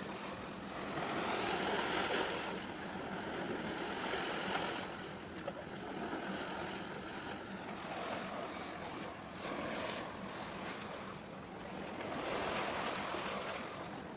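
Sea wash and wind on the microphone: a rushing noise that swells and eases every few seconds, with a faint steady low hum beneath it.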